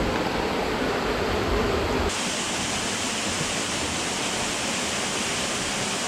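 Waterfall rushing: a steady noise of falling water, with heavier low rumble for the first two seconds and a lighter, hissier sound after.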